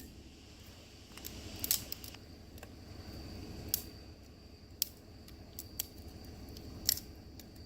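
Scattered light clicks and knocks, about one a second, over a quiet background hiss with a faint steady high tone.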